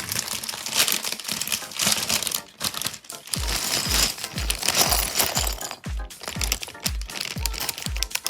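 Plastic bags of LEGO pieces crinkling as they are handled and opened. About a third of the way in, background music with a steady beat of about two thumps a second comes in underneath.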